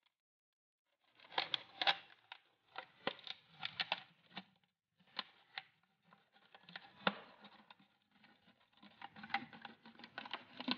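A knife sawing into a thin clear plastic bottle: irregular crackling clicks and scrapes of the blade through the plastic, starting about a second in.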